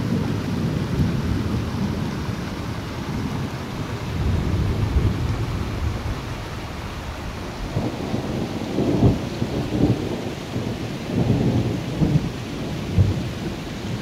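Muddy rainwater runoff rushing down a hillside channel after heavy rain: a steady low rumble of running water, with several short, louder surges from about eight seconds in.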